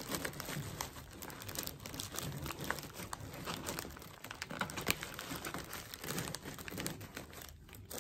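Plastic cellophane packaging and crinkle-cut paper shred crinkling and rustling as packages are handled and pushed into a basket, in irregular crackles with a brief lull near the end.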